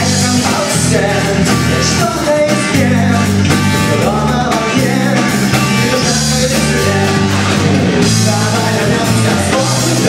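Live rock band playing a song: a male singer over strummed guitars, bass notes and a drum kit, with cymbals hissing steadily on top.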